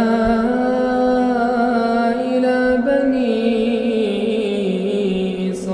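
A male reciter's voice chanting Quran recitation, holding one long melodic note on a single breath. The pitch steps a little higher, then slowly sinks, and the voice breaks off shortly before the end.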